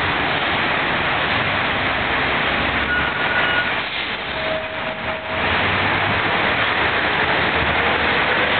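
Steady roar of traffic on a busy city street, with two short steady tones about three and about four and a half seconds in.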